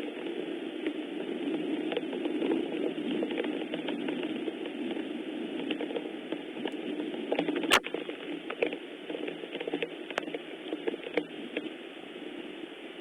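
Steady rain falling, a dense patter of drops with one sharper tap about eight seconds in, easing slightly after it.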